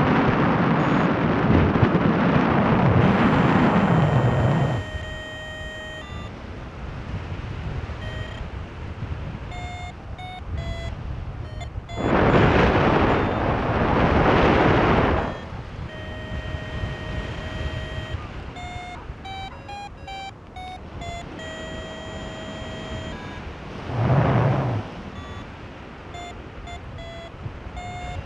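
Paragliding variometer beeping in short tones that jump between pitches, the climb tone that signals lift. Loud wind rush on the microphone fills the first five seconds, returns for about three seconds around the middle, and comes back briefly near the end.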